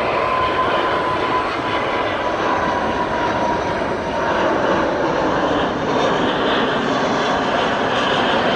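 Airbus A380 jet engines at takeoff thrust: a loud, steady jet roar. A thin whine in it sinks slightly in pitch over the first few seconds.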